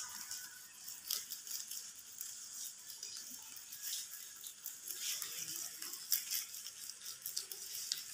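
Rabbits chewing long green leaves close to the microphone: quick, irregular crunching ticks.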